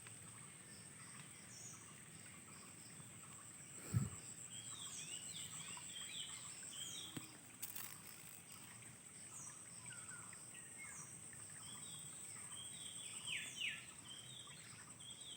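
Birds chirping in short, falling calls over a steady high-pitched insect drone, with a single low thump about four seconds in.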